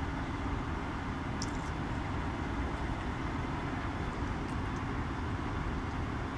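Kis Wash commercial tumble dryer running on a high-heat timed dry, its drum turning a load of towels and dressing gowns: a steady low rumble and hum, with a faint tick about a second and a half in.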